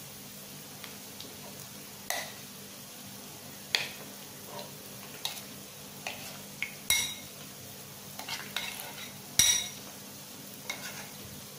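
Chicken wings deep-frying in plenty of oil with a steady sizzle, the sound of water still cooking out, which means the wings are not yet done. A metal utensil clinks and scrapes against the pan about a dozen times, some strikes ringing briefly; the loudest knock comes about nine seconds in.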